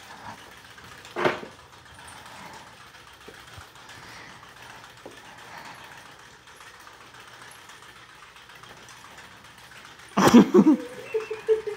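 Ceiling fan turning with soda-can windmills mounted on its blades, a faint steady whir, with one short loud noise about a second in. Near the end a cat meows loudly several times.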